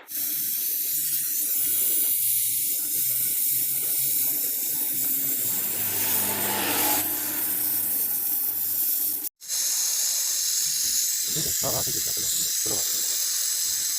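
Loud, steady hiss of pressurised gas jetting out of a refrigeration line, with a faint low hum underneath. It starts suddenly and breaks off for a split second about nine seconds in.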